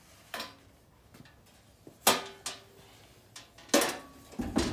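The pellet stove's removed top cover knocking and clattering as it is set down and leaned against a wall: four sharp knocks, the loudest about two seconds in and just before four seconds, with a low rumble setting in near the end.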